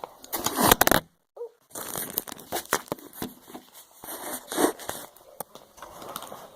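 Kinetic sand being scooped up and handled in its plastic kit: crinkling, rustling and scattered clicks. A loud burst of rustling comes right at the start, then the sound drops out briefly about a second in.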